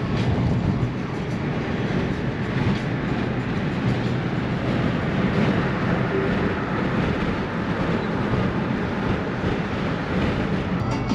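Steady road and tyre noise with engine hum inside a Ford Focus cabin while driving at an even speed, an unbroken rushing.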